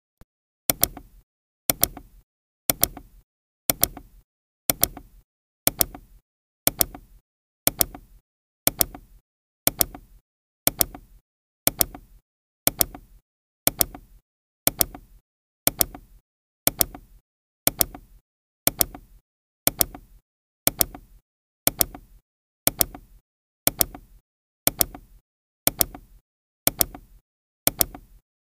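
Ticking sound effect, one sharp tick every second, each a quick double click with a short dull tail, marking off the seconds of a countdown timer.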